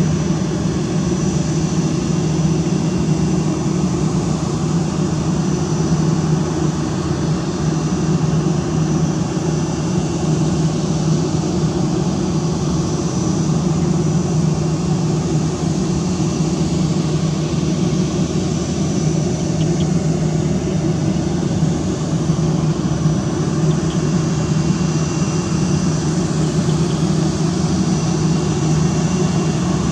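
Airbus A320 jet engines at low taxi thrust as the airliner rolls slowly along the runway: a steady engine hum with a faint thin high whine.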